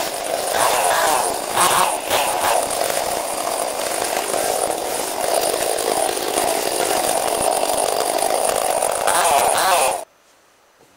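Chainsaw running at high revs while cutting a felled tree, its engine note wavering, with louder surges about two seconds in and near the end; it cuts off suddenly about ten seconds in.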